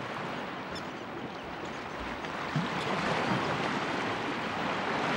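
Sea water washing and lapping in small waves, a steady rushing noise.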